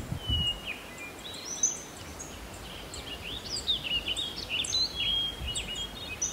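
Small songbirds chirping and singing: many short, high notes and quick whistled glides, with a low background noise beneath.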